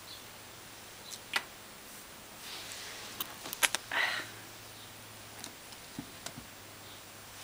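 A cat batting a scrap of fabric on carpet: a few light clicks and ticks, with a short rustling scuff about four seconds in.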